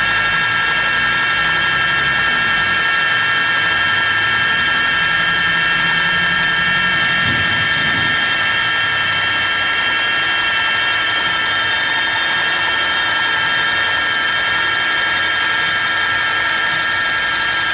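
Large computer-controlled welding machine running with a steady high whine of several tones over a constant hum.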